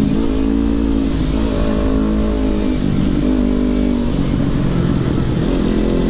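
Kawasaki Ninja 300's parallel-twin engine running under way, its pitch stepping down around the middle and dipping briefly near the end, with wind rushing over the microphone.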